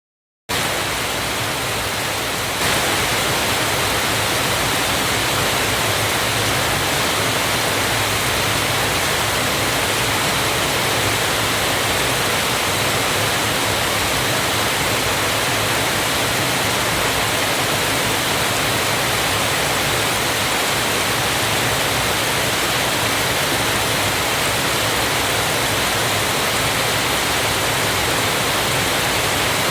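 Waterfall: a steady, dense rush of falling water that begins abruptly half a second in and grows a little louder at about two and a half seconds.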